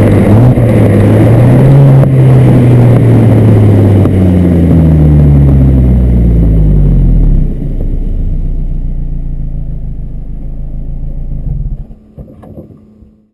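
Stock exhaust of a 2007 Mini Cooper R56's four-cylinder engine, close to the tailpipe while driving, with road noise under it. The revs rise a little, then fall as the car slows. About seven and a half seconds in it gets quieter and settles into a steady idle, then fades out near the end.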